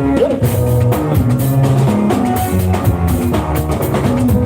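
Loud live band music with drum kit, percussion and guitar, a steady dance beat.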